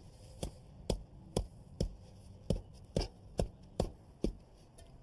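Rubber mallet knocking a concrete fire-pit block down into place, about nine sharp blows roughly half a second apart, setting the last block of the first course tight and level.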